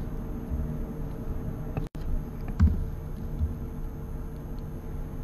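Steady low hum and room noise of a chamber picked up by an open microphone, with a low thump about halfway through and a few faint clicks; the sound cuts out completely for an instant just before two seconds in.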